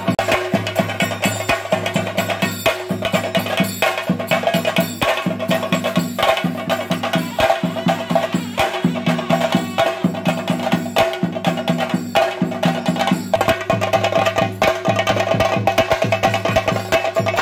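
Theyyam percussion ensemble: chenda drums beaten fast with sticks in a dense, driving rhythm, over a steady held tone.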